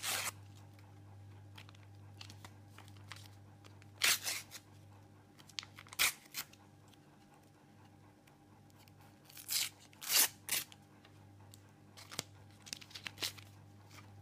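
A Panini sticker packet's foil wrapper being torn open and crinkled, then the stickers handled, in scattered short rustling bursts, the loudest right at the start and about four, six and ten seconds in.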